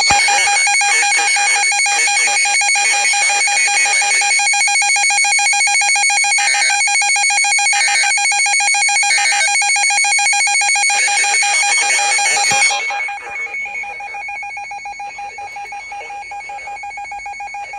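Weather radio alert alarm sounding for a tropical storm warning: a loud electronic alarm of steady tones, rapidly pulsing. About 13 seconds in it drops sharply in level and carries on more quietly.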